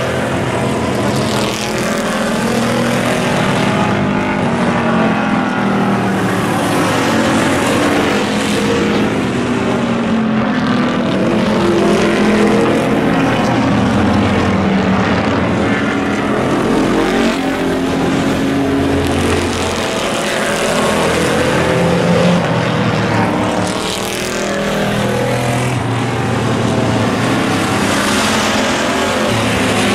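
Several pickup trucks racing around an oval, their engines running hard at race speed, the pitch rising and falling as the trucks pass and go round the turns.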